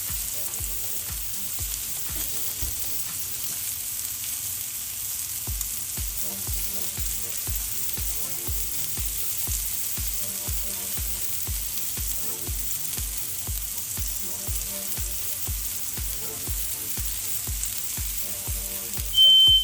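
Mushrooms sautéing in a skillet, a steady sizzle, over background music with a steady beat. A loud, high electronic beep starts near the end.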